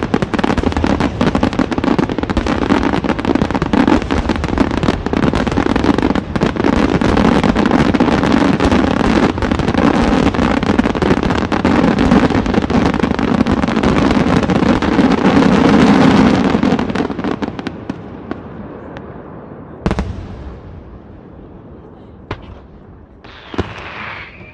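Aerial fireworks: a dense, continuous barrage of shell bursts and crackling for about sixteen seconds, then it thins out, with one sharp bang about twenty seconds in, a few smaller reports and a short hiss near the end.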